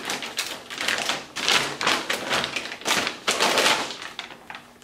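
Clear plastic bag crinkling and rustling as a shin guard is worked out of it, in a quick irregular run of crackles that dies down near the end.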